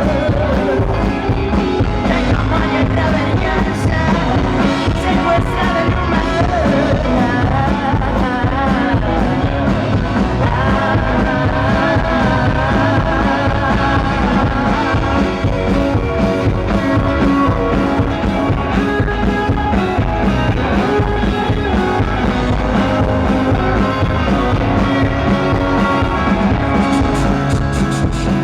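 Rock band playing live at full volume, with a steady beat under a wavering lead melody.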